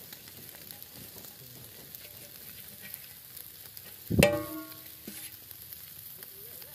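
Whole fish sizzling on a wire grill over a charcoal fire, with a steady crackle. About four seconds in comes a single sudden loud knock that rings briefly.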